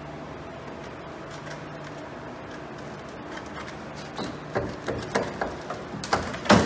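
A steady low background hum, then from about four seconds in a quick string of knocks, clicks and scrapes, the loudest near the end, as hands work at the headlight assembly and its mounting.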